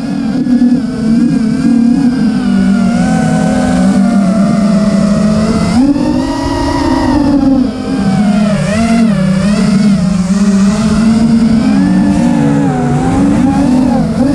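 Wizard FPV racing quadcopter's motors whining, heard from the onboard camera, their pitch rising and falling continuously with the throttle as the quad banks and chases.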